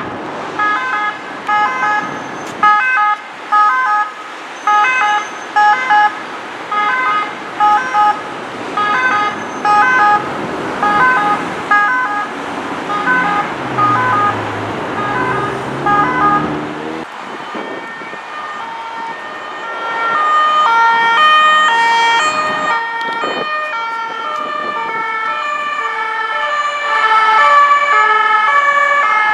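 French two-tone emergency vehicle sirens in motorway traffic, each switching back and forth between a high and a low note. One siren fades out after about twelve seconds, and a vehicle engine passes with a falling, then rising pitch. A second two-tone siren comes in and grows louder toward the end.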